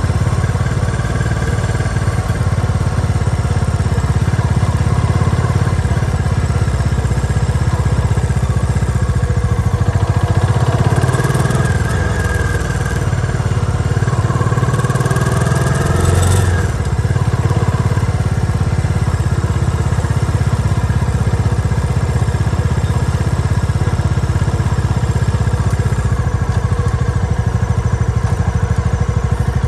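Motorcycle engine running steadily at low road speed, with some brief rising and falling tones in the middle.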